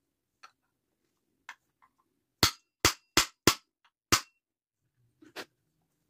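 Five sharp hammer blows in quick succession on the centre hub of a vacuum cleaner motor's fan, knocking the motor shaft down out of its bearing, with a few lighter taps before and after.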